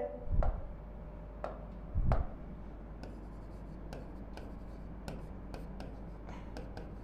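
Marker writing on a whiteboard: faint short strokes and taps of the pen tip. Two dull low thumps in the first couple of seconds.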